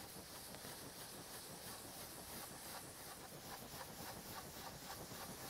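Oval ink blending brush rubbing ink onto paper cardstock in quick, repeated circular strokes: a faint, soft brushing.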